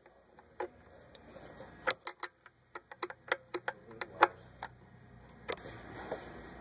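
A wrench working a small bolt or nut in the engine bay: a run of sharp, irregular metal clicks, thickest between about two and five seconds in.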